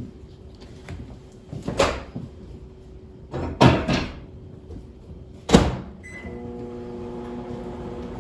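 Microwave oven being loaded and started: a few loud knocks and clatters of the door and bowl, a short beep about six seconds in, then the oven starts running with a steady hum.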